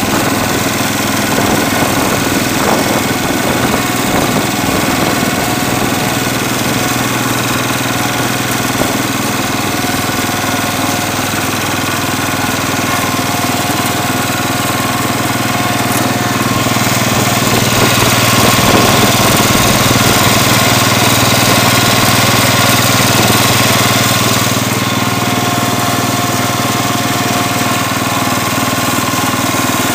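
Kohler K-241A 10-horsepower single-cylinder engine of a Cub Cadet 107 garden tractor running steadily as the tractor is driven along, getting a little louder for several seconds past the middle.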